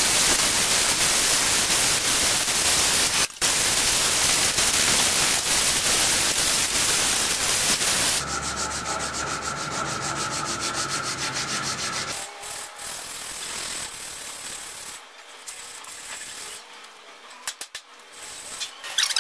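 Electric angle grinder with an abrasive disc grinding down a wooden hatchet handle, a loud steady grinding rasp. After about eight seconds it gives way to a strip of sandpaper pulled back and forth across the clamped handle, a quieter rhythmic rubbing that grows sparser towards the end.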